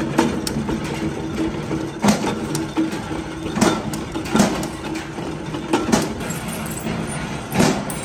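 Punch press running with a steady hum, with about seven sharp knocks at uneven intervals as it stamps washers out of scrap compressor steel.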